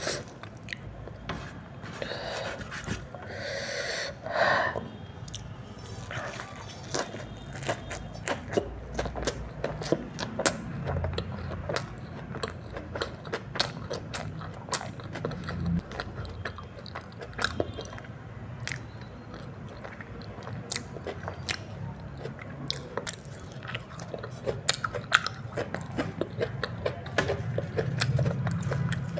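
Close-up eating sounds of someone chewing a mouthful of chowmein noodles, with many small wet clicks of the mouth and a short rustling scrape a few seconds in.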